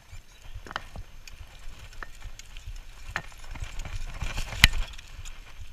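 Bicycle riding over bumpy grass and dry leaves, heard from a handlebar-mounted camera: a low rumble from the tyres and ground with sharp rattles and knocks from the bike about once a second, the loudest about four and a half seconds in.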